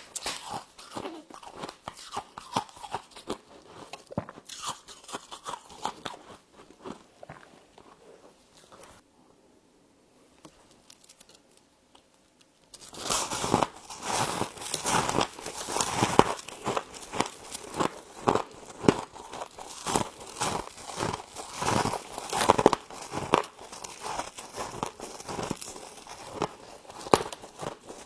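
Close-up crunching and chewing of frost in the mouth, a rapid crackle of small bites. It drops off for about three seconds partway through, then comes back louder and denser.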